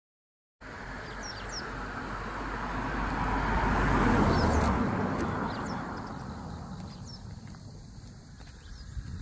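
A vehicle passes on the road: its noise swells to a peak about four seconds in and then fades away. Birds chirp briefly now and then.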